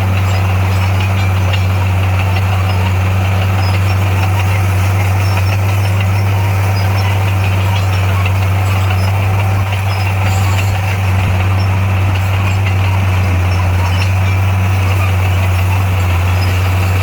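Heavy construction machine's diesel engine running steadily with a constant low drone.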